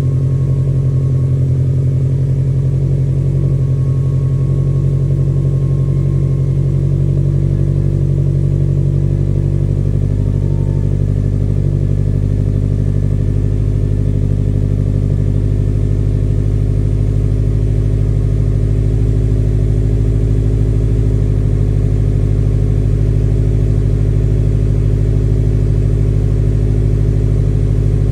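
Subaru STI's turbocharged 2.5-litre flat-four engine running at a steady speed, without revving.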